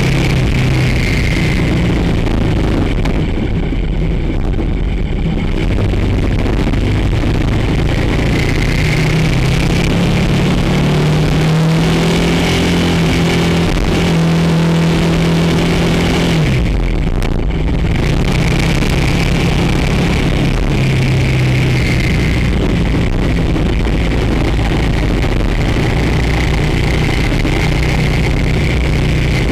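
Motorcycle engine running steadily under way, its pitch shifting up and down several times as the revs change.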